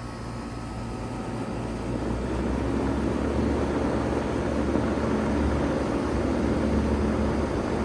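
Bard 3-ton wall-hung heat pump starting up in cooling mode: its running noise builds over the first two seconds or so, then settles into a steady rush of air over a low hum.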